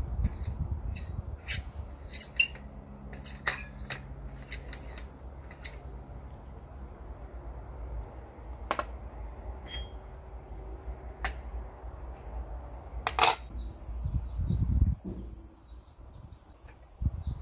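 Light metallic clicks and clinks as the cap nut and vented hood of a Hasag 351 L petrol lamp are unscrewed and handled, with one louder clink late on. Birds chirp in the background.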